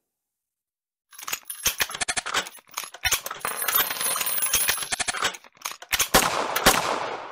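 Gunfire sound effects: about a second in, a string of sharp shots and rapid fire begins, ending in a final group of shots whose noise fades away.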